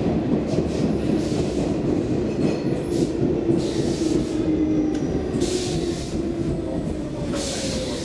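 C14 metro train heard from inside the carriage, rumbling steadily on the rails with a motor whine. In the second half the whine falls in pitch as the train slows into a station, with a couple of brief hisses.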